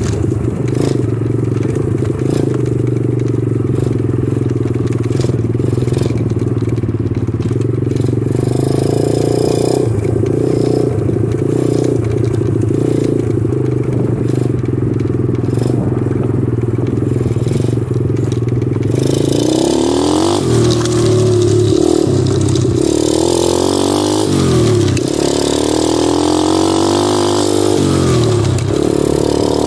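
A 125cc engine running while being ridden, holding a steady speed for the first two-thirds. From about two-thirds of the way through, its pitch rises and falls several times as the throttle is opened and closed.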